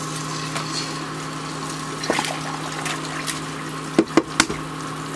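Butter sizzling in a frying pan ahead of frying eggs: a steady hiss over a steady low hum. A few sharp knocks come about two seconds in and again near four seconds.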